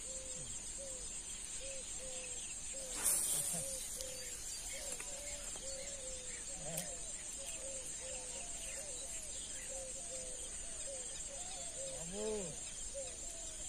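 Steady high-pitched insect chorus at a weedy pond, over a run of short repeated low calls, about two a second, with a louder drawn-out call near the end. A brief noisy burst about three seconds in is the loudest sound.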